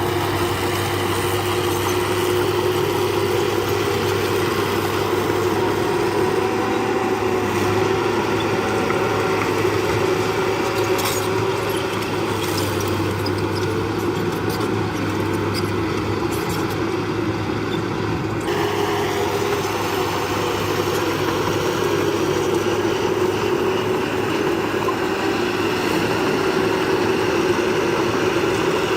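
Diesel engine of heavy earthmoving machinery running steadily, its sound shifting abruptly about two-thirds of the way through.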